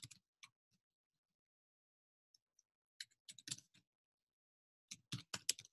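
Faint keystrokes on a computer keyboard: a few keys at the start, then two quick runs of typing, about three seconds in and again near the end, with quiet gaps between.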